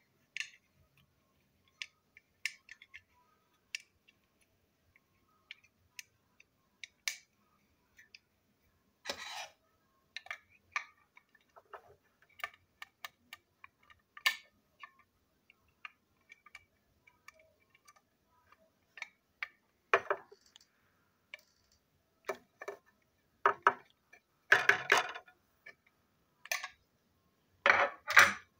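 Small plastic clicks, taps and rattles of a toy diesel locomotive being unscrewed and pulled apart by hand. The clicks are scattered at first, with louder bursts of clattering later on, the loudest near the end.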